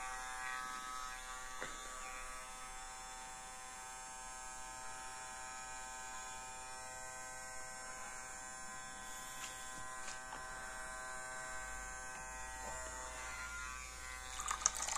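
Small brushed DC motor in a homemade aerosol-can jet ski model, running with a steady buzzing whine. Near the end, water splashes and churns.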